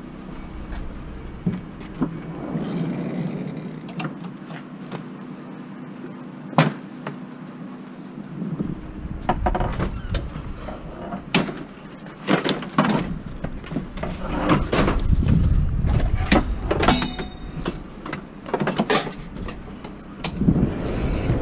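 Irregular knocks, clicks and clatters of hard objects being handled and moved, with a low rumble joining in about eight seconds in.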